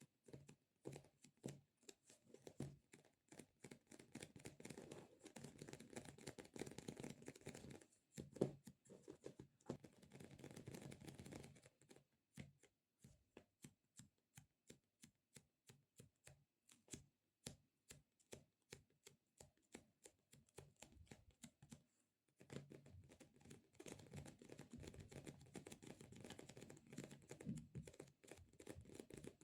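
Quiet tapping and squishing on sticky squishy stress-relief toys: a steady run of light, quick taps, with stretches of soft sticky handling noise in the first half and again near the end.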